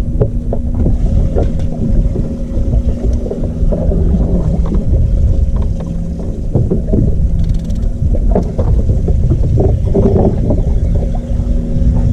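Bay boat's outboard motor running steadily, with wind buffeting the microphone.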